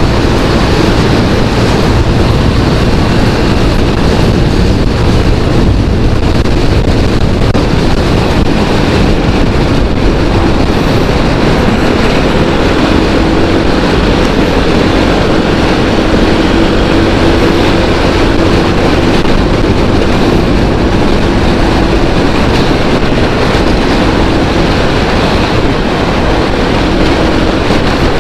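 Loud, steady road and wind noise of a vehicle travelling on the highway, with a faint steady hum in the second half.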